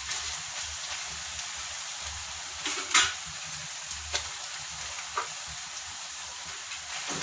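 Chicken pieces and sliced onions sizzling in hot oil in a pan, with a few clicks and scrapes of a utensil against the pan, the loudest about three seconds in.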